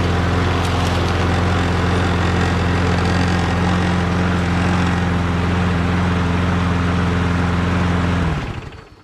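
Toro Recycler lawn mower's Briggs & Stratton Quantum 6.75 single-cylinder engine running steadily at speed, then cut off about eight seconds in and quickly winding down.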